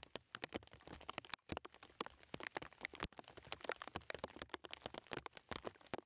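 Rain falling, with many individual drops tapping sharply and irregularly on a surface close by.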